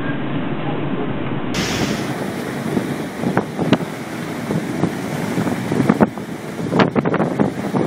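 Storm wind and heavy seas aboard a bulk carrier pitching into waves: a steady rush of wind and water, with sharp cracks scattered through the second half as waves break over the bow and spray strikes.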